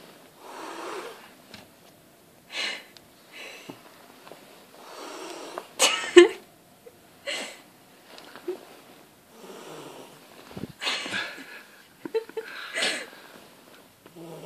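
Domestic cat hissing again and again in short bursts, angry at being woken from sleep, with a sharper, louder pair of hisses about six seconds in.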